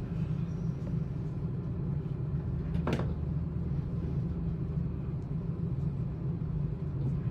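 Steady low hum of background equipment, with one short click about three seconds in.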